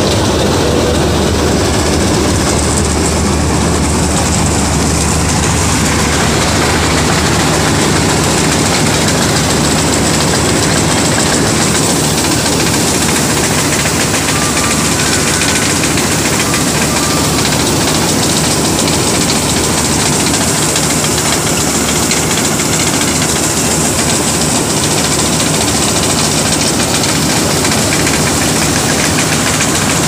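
Preet 987 combine harvester running: a loud, steady drone of its diesel engine and threshing machinery.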